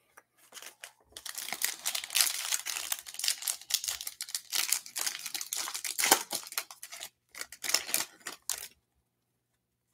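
Shiny foil wrapper of a Panini Select UFC trading-card pack being torn open and crinkled as the cards are pulled out. It is a dense, irregular crackling that starts about a second in and stops shortly before the end.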